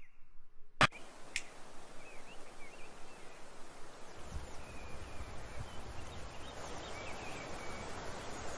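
Outdoor woodland ambience: scattered bird chirps over a steady hiss. A single sharp click sounds just under a second in, and a low rumble joins about halfway through.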